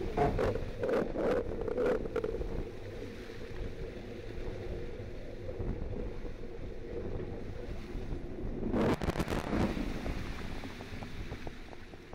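Wind buffeting the microphone over the rush of sea water along a racing yacht's hull in heavy seas, with a few short splashes near the start and a louder whoosh of spray about nine seconds in.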